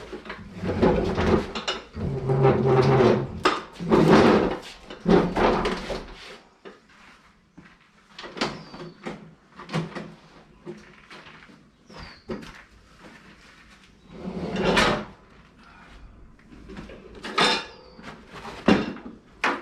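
A 54-inch Craftsman lawn tractor mower deck being dragged and spun around on the floor, scraping and clanking. The scraping is loudest through the first six seconds, with scattered knocks after and another scrape about fifteen seconds in.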